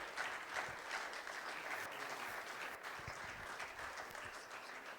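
Audience applauding, a steady patter of many hands clapping that begins to fade near the end.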